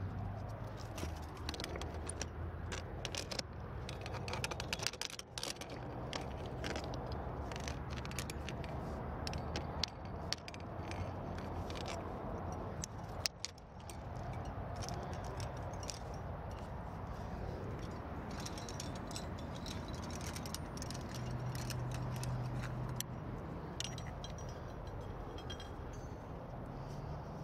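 Metal climbing gear clinking and jangling, with carabiners, cams and nuts racked on a harness knocking together as the climber moves and clips gear, in many short sharp clicks over a steady low rumble.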